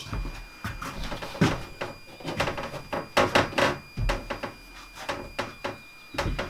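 Irregular wooden knocks, bumps and scrapes as a wall board is handled and test-fitted, with several louder knocks in the middle.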